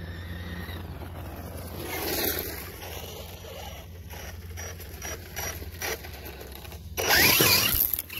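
Glamis Fear RC buggy driving over dirt and clay. Its motor whine rises and falls about two seconds in, then come a run of short knocks and ticks over the rough ground. Near the end there is a loud burst of tyre and spraying-dirt noise as it passes close.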